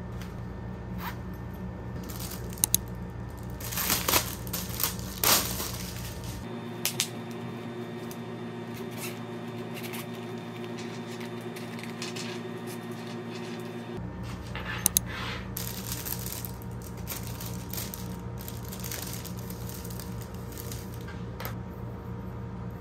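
Soft background music under a few sharp clicks and rustles from pencil cases and plastic-wrapped pens being handled.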